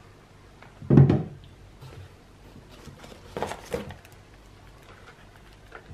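A shrink-wrapped twin pack of plastic bottles set down on a table with a thump about a second in. Then cardboard and packaging rustle and knock as a small product box is lifted out of a shipping carton.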